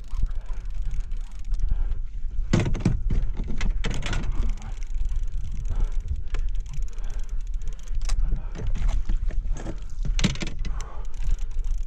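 A steady low rumble with several sudden splashes and knocks. The last, about ten seconds in, is a hooked muskie splashing at the surface beside the landing net as it is netted.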